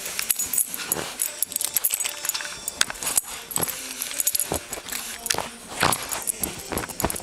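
Dachshund digging at a couch, claws scratching quickly and repeatedly on the cushion fabric, with several short snorts through its nose that sound like a pig.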